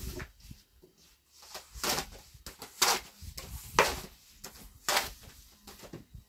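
Long thin wooden rolling pin knocking against a round wooden board while flatbread dough is rolled out: four sharp knocks about a second apart, with fainter clicks and rubbing between.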